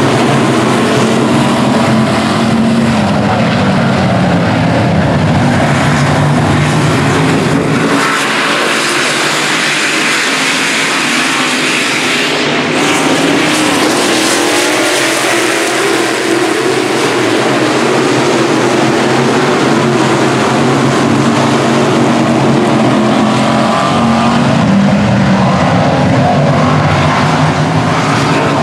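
Dirt late model race cars' V8 engines running at racing speed, their pitch rising and falling as they rev through the corners and pass by. The deep rumble thins out about eight seconds in.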